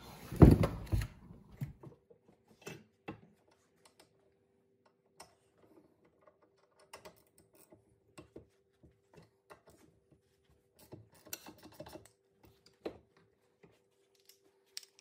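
Short clicks and clacks of a socket ratchet and metal tools working the bolts loose on a motorcycle brake caliper clamped in a bench vise, with two loud knocks in the first second. A faint steady hum lies underneath.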